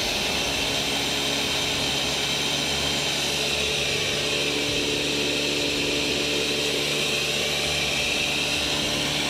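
Ninja countertop blender running at high speed, puréeing a habanero, pineapple and garlic hot sauce. It runs as a loud, steady whine that dips slightly in pitch midway and comes back up.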